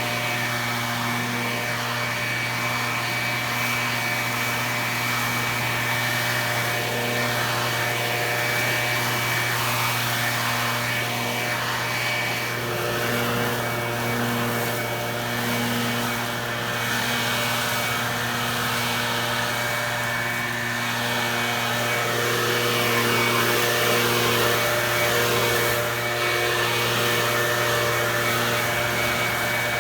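Small gasoline engine of outdoor power equipment running steadily at a constant speed, with a continuous hum and an airy rush.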